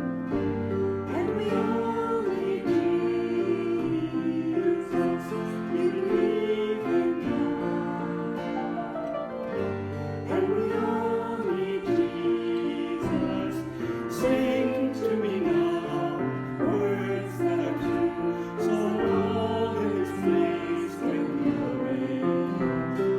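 Worship song performed by a small praise band: voices singing together over strummed acoustic guitar and sustained chords.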